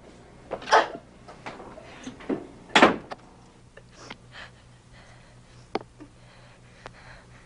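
A door knocking and thumping, the loudest thump near three seconds in, followed by light, scattered clicks and taps of a plastic contact lens case and solution bottles being handled on a counter.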